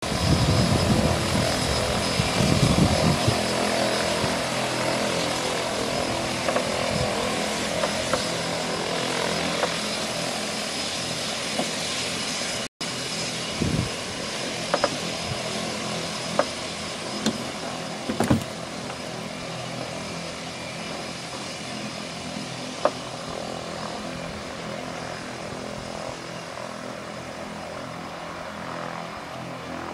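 Turboprop floatplane's engine and propeller at takeoff power on its takeoff run, a steady turbine whine over propeller noise that slowly fades as the plane pulls away. The sound cuts out for an instant about a third of the way in, and a few short clicks come through over the next ten seconds.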